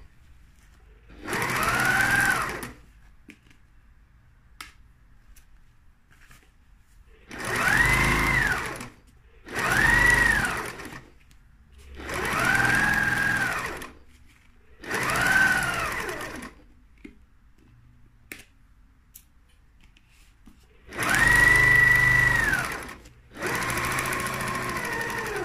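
Janome electric sewing machine stitching in seven short runs, its motor whine rising and falling in pitch with each run, with pauses between. The stops are where the needle is left down and the fabric is lifted and turned to follow the curve around an eyelet ring.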